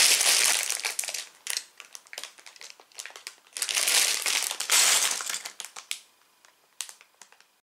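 A thin plastic bag full of Lego bricks crinkling loudly as it is handled, in two spells, with the loose bricks inside clicking against each other between them. It dies away about six seconds in.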